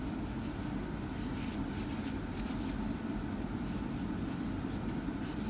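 Steady low background hum, with a few faint soft ticks from a crochet hook working yarn.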